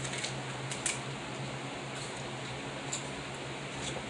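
A few sharp clicks and cracks of snow crab leg shells being broken open and eaten, over a steady low background hum.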